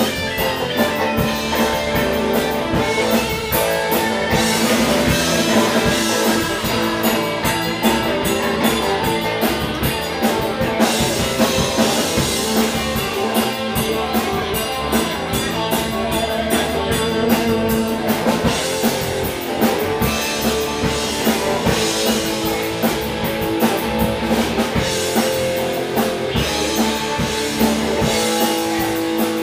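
Live blues band playing an instrumental passage with no vocals: electric guitars over drum kit and bass guitar, with a steady beat of cymbal strokes.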